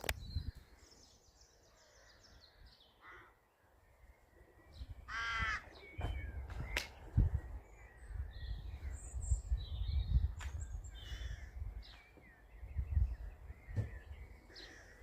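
A bird gives one cawing call about five seconds in, with wind rumbling on the microphone and faint small-bird chirps.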